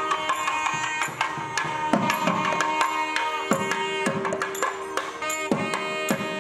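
South Indian temple procession music: a nadaswaram holds long, stepwise-changing melody notes over rapid thavil drum strokes, with a few heavier low strokes.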